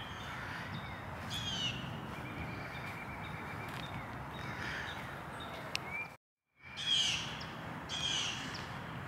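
Outdoor background noise with birds calling: short descending calls, a few early on and then about one a second in the second half. The sound drops out completely for a moment about six seconds in.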